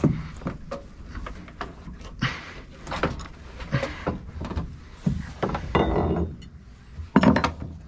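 Metal parts of an AMF 82-30 pinsetter's pit scraping, rubbing and knocking as they are forced into place by hand, with a brief high squeak about six seconds in and a sharp knock about seven seconds in.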